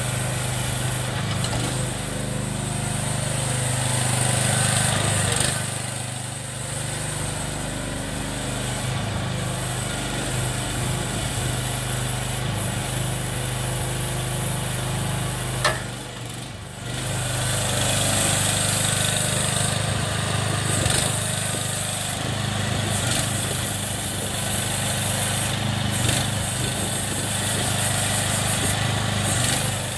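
AGROTK H13R mini excavator's small engine running steadily while the boom, arm and bucket are worked and the cab swings, its level swelling and dipping as the machine moves. A single sharp knock about halfway through, followed by a brief drop in level.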